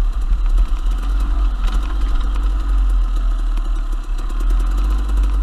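KTM 250 XC-W two-stroke dirt bike engine running steadily at low speed on a rocky trail, with scattered clattering knocks from the bike over the stones.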